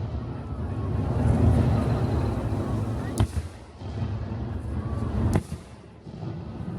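Fireworks of a star mine barrage going off over a lake: a continuous low booming rumble, with two sharp cracks about three and five seconds in.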